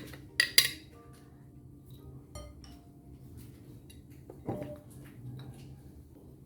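Kitchen dishes and utensils clinking: two sharp clinks close together about half a second in, a light tick around two and a half seconds, and a duller knock about four and a half seconds in.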